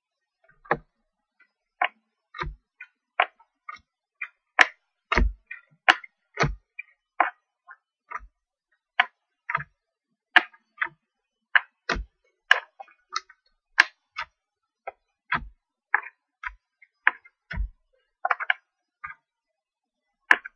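Match Attax cardboard trading cards being flicked through one by one in the hands, each card giving a sharp click or snap at an uneven pace of about two a second.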